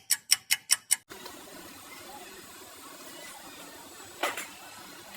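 Hammer striking metal in rapid ringing blows, about five a second, that stop about a second in. After them comes a steady low background with one short scraping burst about four seconds in.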